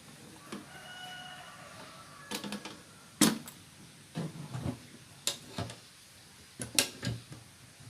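Aluminium motorcycle pannier box being handled: a series of irregular sharp knocks and clicks of its lid, latches and panels.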